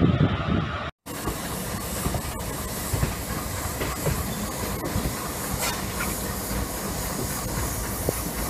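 Steady rushing hiss of a running passenger train, with wind and wheel-on-rail noise and a few faint clicks, heard from the side of the coach. It begins after a brief dropout about a second in.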